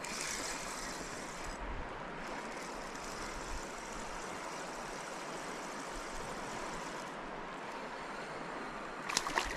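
Steady rush of river water, an even noise with no rhythm. A few sharp clicks come near the end.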